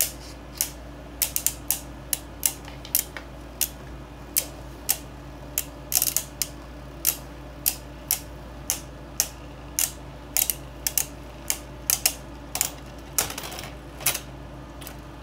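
Beyblade Burst Turbo spinning tops, one of them Turbo Spryzen, battling in a plastic stadium, clacking sharply as they collide, two or three hits a second at uneven spacing. The hits stop shortly before the end, when one top has come to rest.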